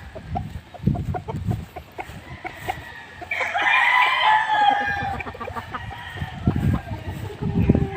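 A gamefowl rooster crowing: one long call starting about three seconds in, lasting over a second and falling in pitch at the end. Irregular low thuds sound throughout.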